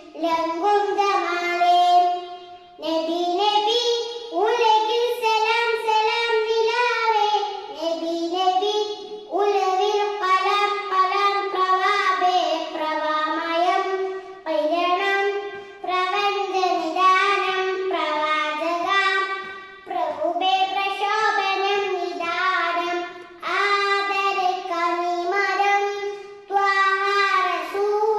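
A young girl sings a Malayalam devotional song in praise of the Prophet, solo and unaccompanied, into a handheld karaoke microphone. The song goes in melismatic phrases of a few seconds each, with short pauses for breath between them.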